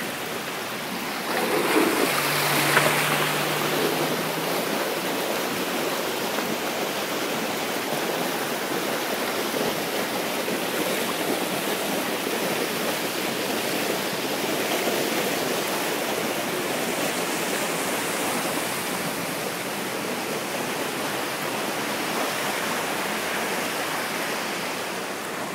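Floodwater rushing across a street in torrential rain: a steady sound of flowing water.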